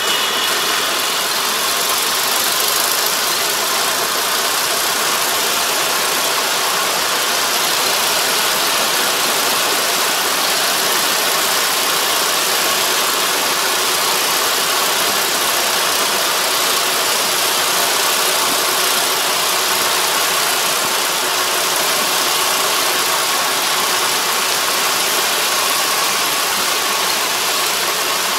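Rice combine harvester running steadily as it cuts the crop: a continuous even machine noise with a faint steady hum under it.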